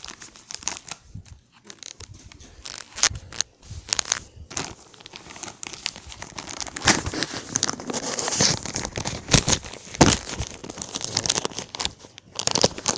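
Plastic poly mailer bag being torn open and crumpled by hand: a rapid series of sharp crackles and rips, getting busier and louder about halfway through.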